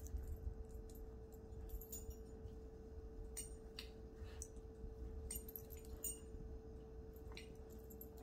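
Faint scattered clicks and clinks as a merle puppy plays with and mouths at a lying doodle, with more of them in the middle, over a steady faint hum.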